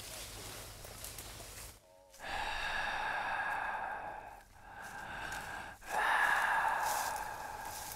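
A person doing heavy, drawn-out monster breathing: three long breaths starting about two seconds in, the last the loudest.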